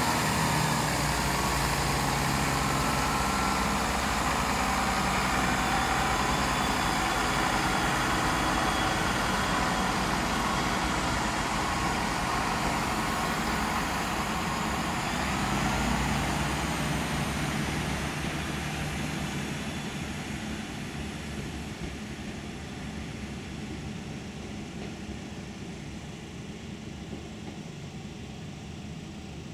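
Chiltern Railways diesel multiple unit passing through the station: its diesel engines and wheels on the rails are loud and steady for about the first half, then fade gradually as it pulls away.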